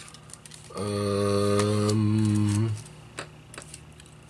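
A low, steady hum lasting about two seconds, starting about a second in, with a few small clicks before and after it.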